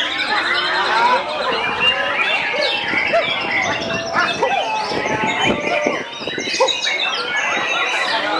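White-rumped shamas singing over one another, a dense, unbroken run of quick whistles, trills and rapid phrases.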